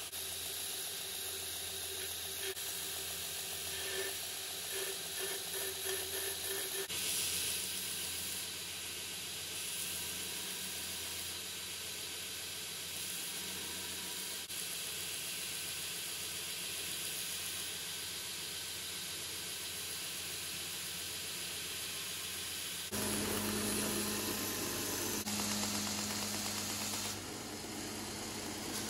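Belt grinder running, its abrasive belt sanding a knife's handle with a steady hiss over the motor's hum. About three quarters of the way through the sound changes abruptly to a louder grinder with a stronger, steadier hum.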